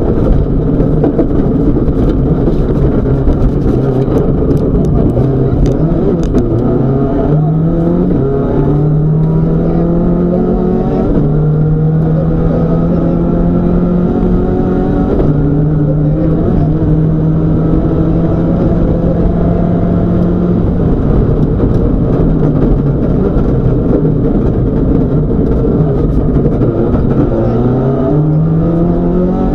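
Rally car engine heard from inside the cabin, driven hard through the gears: the revs climb in repeated rises with each shift, hold high for long stretches, ease off about two-thirds through and climb again near the end. Steady road and tyre noise runs underneath, with sharp clicks scattered through the first several seconds.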